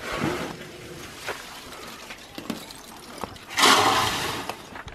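Woven plastic sacks of charcoal rustling as they are handled, with loose charcoal crunching and a few small clicks. A louder rustling rush lasts about a second, starting about three and a half seconds in.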